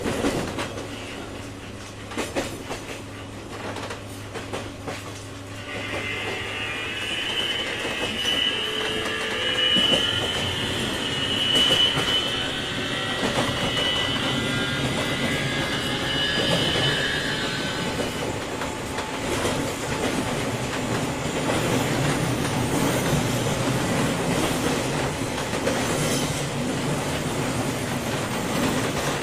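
A JR 201 series electric train's motor car running, heard from inside the car: a steady rumble with rail-joint clickety-clack. About six seconds in, a high, wavering wheel squeal sets in and lasts about twelve seconds before dying away.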